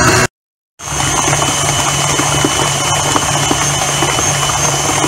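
Electric stand mixer running steadily, its beater turning through chilled shrimp paste in a stainless steel bowl. The motor sound starts about a second in.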